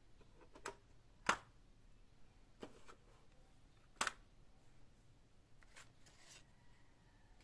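Small metal paint tin being unlatched and opened: a few sharp clicks and clacks of the metal clasp and lid, the loudest about a second in and another about four seconds in, then a brief rustle of handling about six seconds in.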